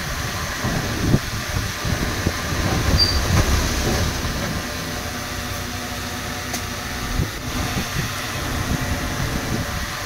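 Crawler bulldozer working: its diesel engine running with a continuous low clatter of the steel tracks.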